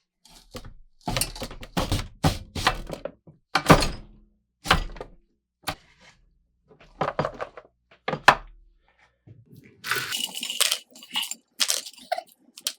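A series of thunks and clunks, about a dozen separate knocks with some rougher scraping noise near the end, from working the antique potato french fry cutter.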